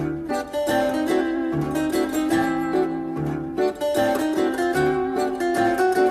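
Instrumental music led by plucked strings, with a repeating bass figure under held notes.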